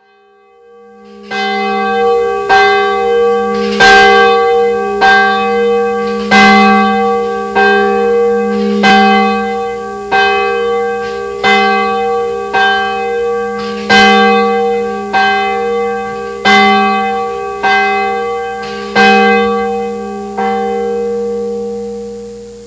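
A single church bell tolling at a steady, even pace, about one stroke every second and a quarter, some sixteen strokes in all, the last one left to ring out and fade. It is the bell rung to begin the worship service.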